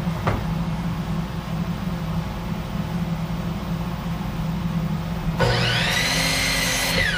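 Miter saw motor switched on about five seconds in: it whines up to speed, runs briefly, then is released and winds down with a falling whine near the end. A steady low hum and a single sharp click lie underneath, before the saw starts.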